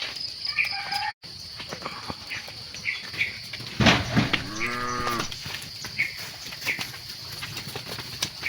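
A cow moos once, a single call lasting about a second and a half that starts about four seconds in, strongest at its start. Short high bird chirps sound on and off around it.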